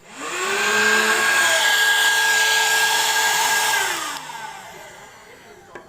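Gemei cordless handheld vacuum cleaner switched on. Its motor whines up to speed, runs steadily with a loud rushing hiss for about four seconds, then is switched off and spins down with a falling whine.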